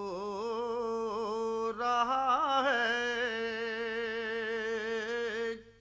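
A man singing a naat solo, unaccompanied, drawing out one long held syllable with wavering, ornamented pitch. The line breaks off for an instant just under two seconds in, then carries on and stops shortly before the end.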